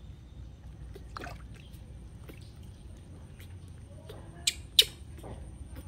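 Small splashes and drips of water as a newborn baby monkey is washed by hand over a plastic basin, with two sharp clicks close together near the end.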